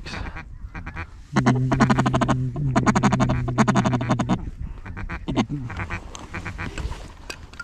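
Mallard duck call blown hard in a long run of rapid, evenly pitched quacks, followed by a few shorter falling quacks, to work circling ducks into the decoys.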